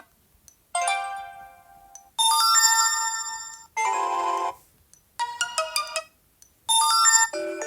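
Previews of Sony Xperia notification tones from the phone's speaker, played one after another: about six short electronic chimes and jingles in quick succession, each cut short, with brief pauses between.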